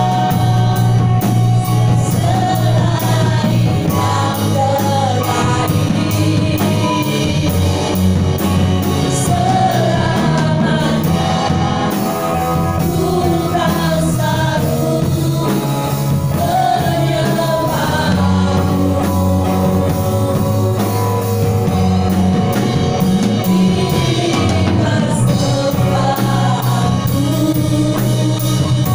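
Live amplified gospel praise song, Indonesian lyrics sung by women's voices into microphones over band accompaniment with a steady bass line.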